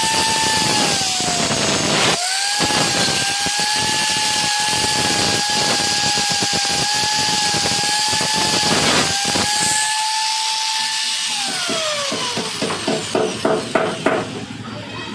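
Electric angle grinder running with its disc against a metal tube, a steady high whine over grinding noise that dips briefly about two seconds in. Near the end it is switched off and the whine falls away as it spins down, followed by a quick series of knocks.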